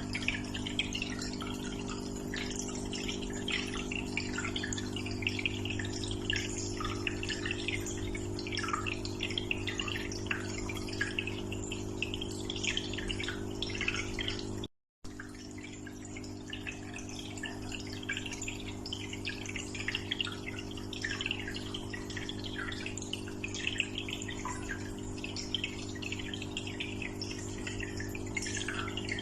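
Aquarium water trickling and bubbling with dense small splashes, over the steady low hum of the tank's pump. The sound cuts out completely for a split second about halfway through.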